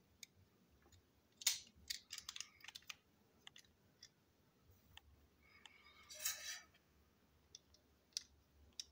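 Small plastic clicks and taps as the parts of a toy train coach are handled and fitted together, a quick run of them early on, then a short scraping rustle about two-thirds through and a few single clicks near the end.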